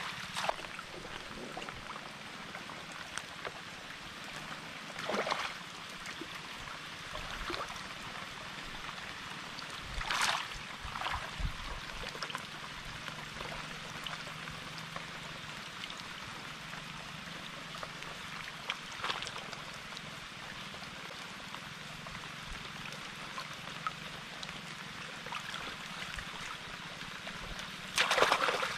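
Shallow muddy water splashing and sloshing as a person wades and rummages through it by hand among water plants: a few scattered splashes over a steady watery hiss, with the loudest splash near the end.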